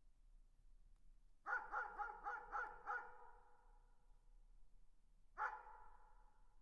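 Dog barking: a quick run of about six barks, then a single bark a couple of seconds later, each trailing off with an echo.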